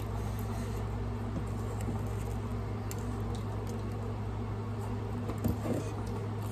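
Soft chewing and small mouth clicks of someone eating, over a steady low hum.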